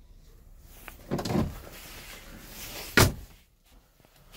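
A sleeper-cab storage drawer slides on its runners about a second in, then shuts with one sharp bang about three seconds in, the loudest sound.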